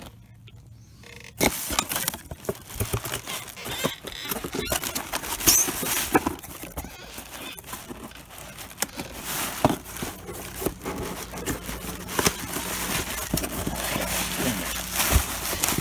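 Cardboard boxes and packaging being handled and rummaged through: rustling and scraping with many small knocks and clunks, starting about a second and a half in.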